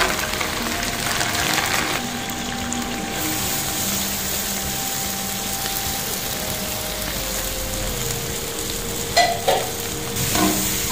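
Hot oil sizzling steadily in a steel kadai as sliced green chillies, curry leaves and then sliced onions fry. Two short sharp knocks near the end.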